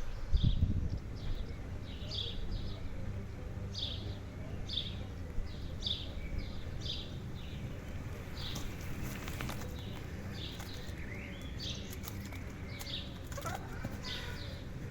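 A small bird chirping over and over, short high calls about one or two a second, with a few sliding calls in the second half. A brief low rumble at the start.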